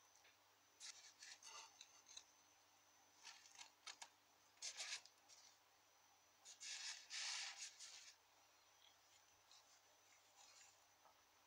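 Fingers handling and turning a gem-set silver ring close to the microphone: faint scratchy rubbing of skin and metal in four short spells, the longest and loudest about seven seconds in, then a few soft ticks near the end.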